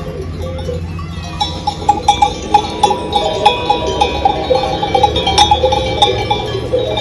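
Bells worn by grazing sheep clanking irregularly, a dense jangle of small clinks at several pitches that grows busier about a second and a half in.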